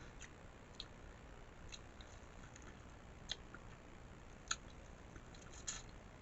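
Faint eating sounds: chewing with a handful of short, sharp mouth clicks and smacks, the loudest about four and a half seconds in.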